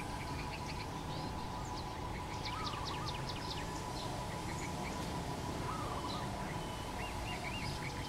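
Small birds chirping and twittering, with quick runs of short high notes and a few lower arched phrases, over a steady faint hum and a low background rumble.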